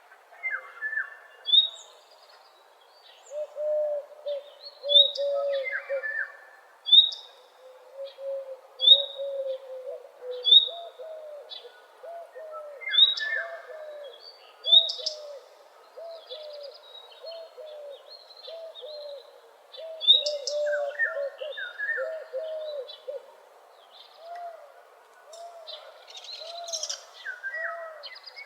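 A morning chorus of several songbirds in woodland. Short high chirps repeat about once a second over a steady run of low, quick, arched calls, with occasional mid-pitched notes from other birds.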